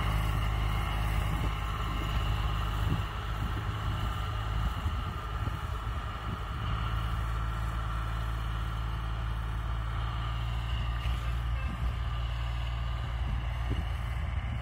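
Farm tractor's diesel engine running steadily at a constant speed.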